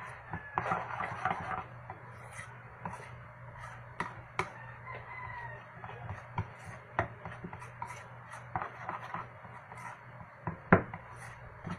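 Irregular knocks and scrapes of a utensil against a mixing bowl as colouring is stirred into puto batter, with one sharper knock near the end.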